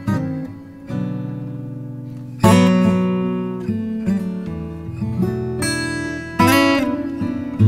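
Background music: chords strummed on an acoustic guitar, each struck suddenly and left to ring out.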